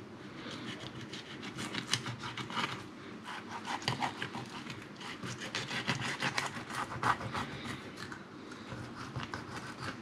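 A filleting knife scraping along a sea bass's backbone and rib bones as the fillet is cut away: a run of short, irregular rasping scrapes and clicks.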